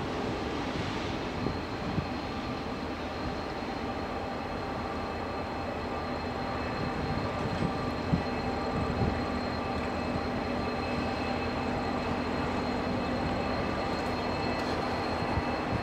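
Diesel locomotive hauling a passenger train approaching slowly: a steady engine drone with a few thin whining tones, growing slightly louder as it nears, with a few faint knocks.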